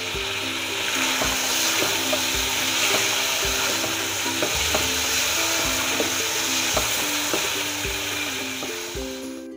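Beef pieces and whole spices sizzling loudly in hot oil in an aluminium pot over a high flame, stirred with a wooden spoon. A simple background tune plays quietly underneath, and the sizzling cuts off suddenly at the very end.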